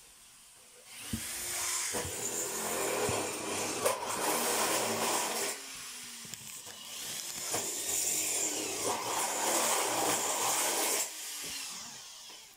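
Handheld electric power tool run twice, each time for about four seconds, spinning up and then working into material with a loud gritty noise.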